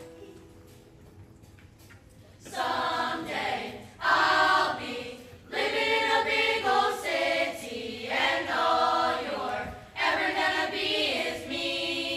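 Middle-school mixed chorus singing together in phrases, starting about two and a half seconds in after a faint held note, with short breaks between the phrases.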